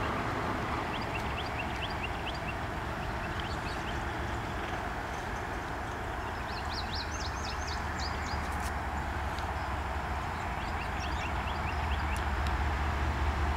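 Low rumble of an approaching diesel train still far down the line, slowly growing louder toward the end, with birds chirping over it and a quick run of chirps in the middle.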